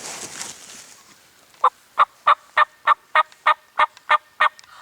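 A turkey yelping: a series of about ten short, evenly spaced yelps, roughly three a second, loud and close, after a brief rustling at first.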